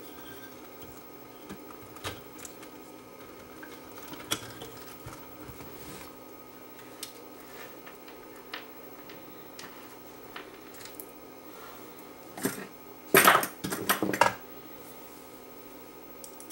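Scattered small clicks and taps of an amplifier's parts being handled and fitted back together, with a short burst of louder clattering near the end, over a faint steady hum.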